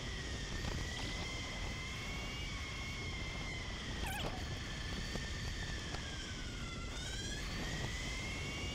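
Electric bike's rear hub motor whining while riding at around 20 mph. Its pitch sinks slowly and climbs again near the end as the speed changes, over a steady rumble of wind and road noise.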